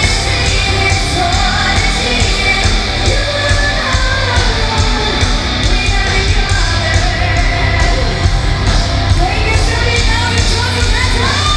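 Symphonic metal band playing live, loud: a woman singing over distorted guitars and drums, with cymbals keeping a steady beat and a heavy, bass-laden low end.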